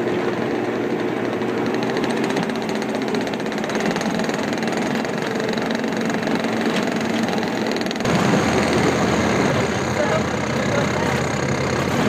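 Bobcat skid steer engine running steadily; its note changes abruptly about two-thirds of the way through.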